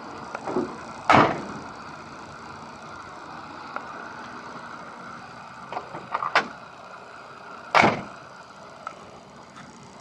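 1963 Chevrolet Impala's door being worked by its chrome push-button handle and shut twice: a few latch clicks, then a solid slam about a second in, more clicks around six seconds, and a second slam near eight seconds.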